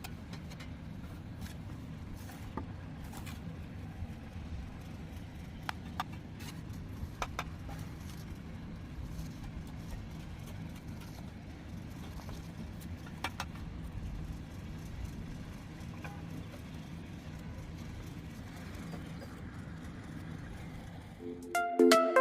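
Steady low rumble with scattered sharp clicks and taps, a few of them in quick pairs.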